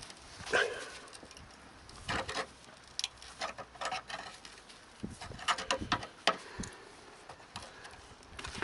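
Handling noise: scattered light clicks and knocks at irregular intervals, some in quick clusters.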